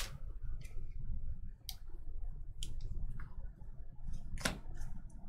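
Stack of Bowman Draft baseball cards being sorted by hand: a few separate soft clicks and snaps as cards are slid apart and tapped together, the loudest about four and a half seconds in.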